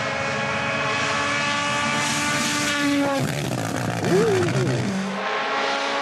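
Rally car's turbocharged engine passing on a tarmac stage, a steady engine note for about three seconds. It then comes off the throttle with a rough stretch of exhaust pops and bangs, and the steady note returns near the end.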